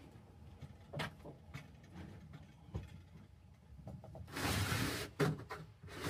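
Rusted sheet-metal secondary drain pan being handled and shifted: a knock about a second in, then a loud scraping, sliding rustle about four seconds in, followed by a click and more scraping near the end.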